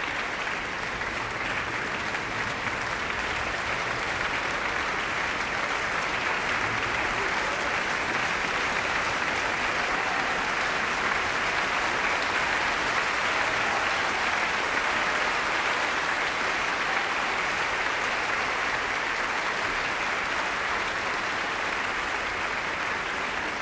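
Large concert audience applauding, a dense, even clapping that swells slightly midway and holds steady.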